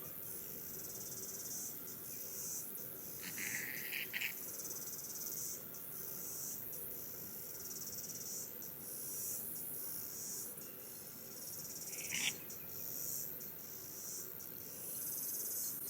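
Insects chirring in a steady high-pitched drone with short breaks. Two brief, lower chirps stand out, one about three to four seconds in and one about twelve seconds in.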